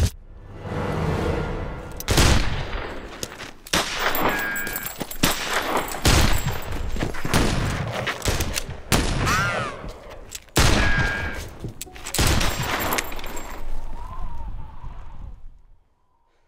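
Revolver gunshots in a gunfight, several loud shots each followed by a long echoing tail, with brief whistling whines between them; the sound dies away near the end.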